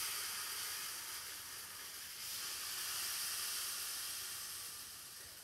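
A rainmaker (rainstick): beads trickling down inside the tube in a steady, even hiss, with a slight break about two seconds in, fading away near the end.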